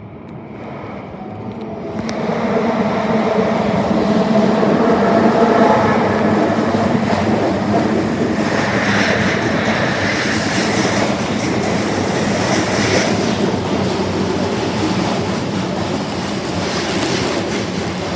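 Osaka Metro Tanimachi Line 22 series subway train (unrenovated car 22616) running. Motor tones and rising noise build over the first few seconds, then a steady rolling noise with the wheels clacking over rail joints.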